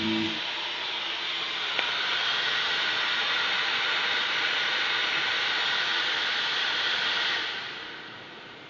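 ATI Radeon HD 6870 graphics card's cooling fan running at 100% speed: a loud, steady rushing hiss with a faint whine in it, likened to a vacuum cleaner. It fades down about three-quarters of the way through.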